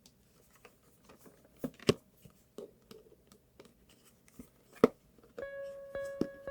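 Cardboard and plastic toy packaging being handled and opened: scattered small clicks and crinkles with two sharper knocks, about two and five seconds in. Background music with a held note comes in near the end.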